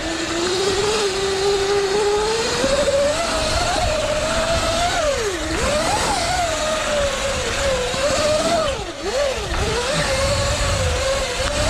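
Surron L1e electric dirt bike's motor whining, its pitch rising and falling with the throttle. It drops sharply about halfway through and twice more about three quarters in, over a steady rushing noise of wind and tyres on dirt.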